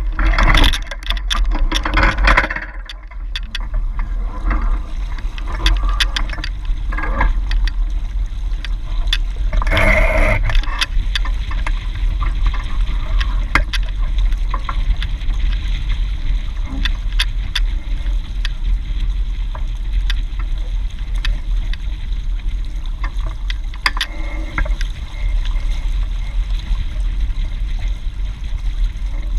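Water rushing and splashing along a Hobie 16 catamaran's hull under sail, with wind buffeting the microphone as a steady low rumble. Louder splashes come in the first couple of seconds and again about ten seconds in.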